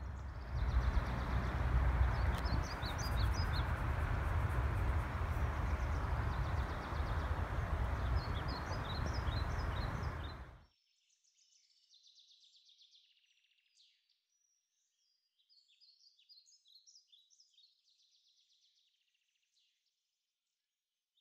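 Small birds chirping in woodland over a loud rumble of wind and rustling on the microphone. The rumble cuts off suddenly about halfway through, and only faint chirps go on after it.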